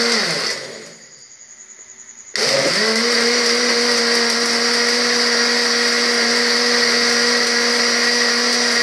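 Countertop electric blender grinding falsa berries in water. It is switched off and winds down, goes near quiet for about a second and a half, then is switched on again about two and a half seconds in and spins up to steady running.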